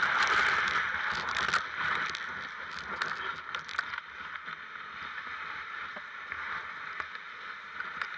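Dog sled runners scraping and hissing over a packed snow trail as the sled is pulled along, with scattered crackles and knocks in the first half; the sound gets quieter and smoother about four seconds in.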